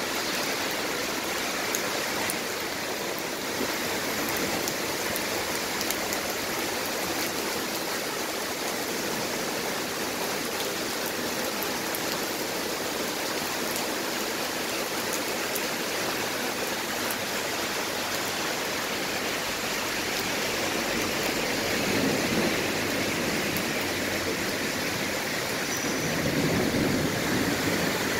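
Heavy rain pouring steadily onto a water-covered street, a continuous rush with two louder swells, about twenty-two seconds in and near the end.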